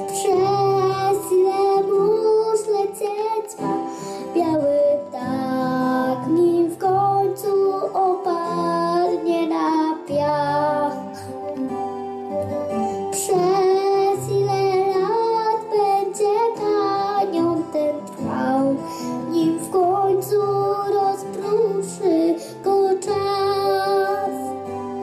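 A young girl singing a song into a microphone over backing music.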